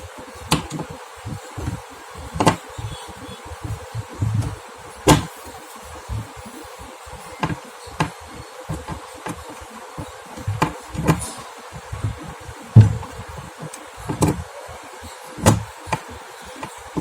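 Screws being taken out of a steel concealed cabinet hinge: irregular sharp clicks and knocks of the screwdriver and metal hinge parts, over a faint steady hum.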